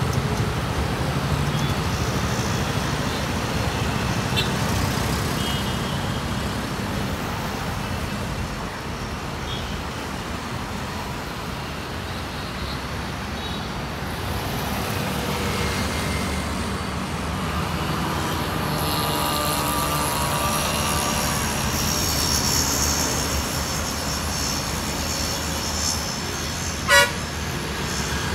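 Steady road traffic passing close by: motorcycles, cars and an auto-rickshaw. A high whine rises for several seconds midway, and a vehicle horn gives one short, loud toot near the end.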